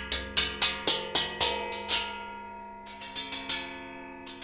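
Hanging gongs struck with mallets in a quick run of strokes, about four a second, each leaving a bright shimmering ring that blends into a sustained wash of tones. About two seconds in the strokes stop and the gongs ring on, then a few lighter strikes come back near the end.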